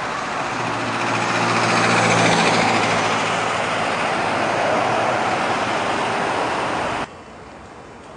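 Road traffic noise: an even rush of tyres with a faint engine hum, swelling about two seconds in and cutting off abruptly near the end.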